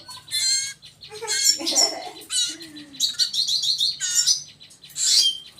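Young songbirds chirping loudly in short, high calls, the begging calls of chicks being fed, with a quick run of about six rapid notes around three seconds in.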